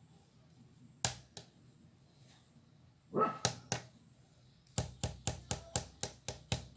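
Two sharp clicks, then a short dog bark about three seconds in, followed near the end by a fast, even run of sharp taps, about four a second.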